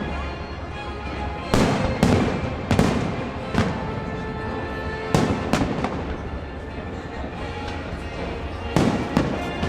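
Aerial fireworks bursting: about eight sharp bangs in irregular clusters, each trailing off in an echoing rumble.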